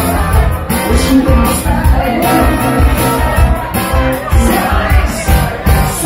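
Live cover band playing amplified dance music: electric guitar, a steady drum beat and a singing voice.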